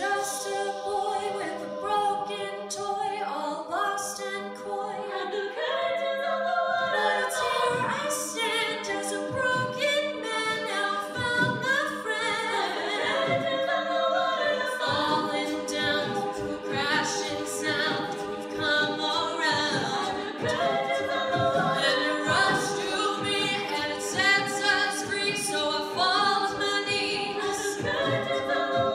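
Women's a cappella group singing live: a lead voice over many-voiced backing harmonies, with no instruments.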